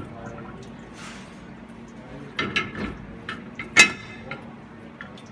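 Bottle washer's cover being opened and a tray of half-gallon dairy milk bottles knocking and clinking together. A group of knocks comes a little past halfway, then one sharp ringing clink, the loudest sound. A low steady hum runs underneath.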